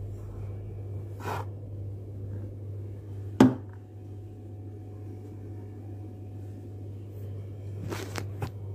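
Flour being poured into a plastic basin and handled, with soft scraping and light clicks, one sharp knock about three and a half seconds in, and a few quicker clicks near the end, over a steady low hum.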